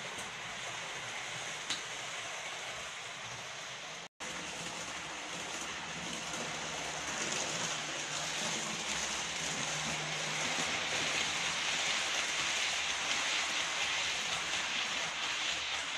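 Roco model FS E.656 electric locomotive and its coaches running on model railway track: a steady rolling hiss of small wheels on the rails, with a sharp click about two seconds in and a brief cut about four seconds in. It grows louder from about six seconds in as the train passes close, with a low hum.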